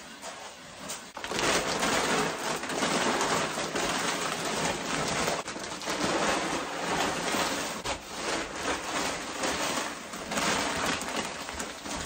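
Dry chicken feed (black sunflower seed, cracked corn and layer pellets) poured from bags into a plastic bin and stirred with a wooden stick: a continuous rattling hiss of grain that starts about a second in.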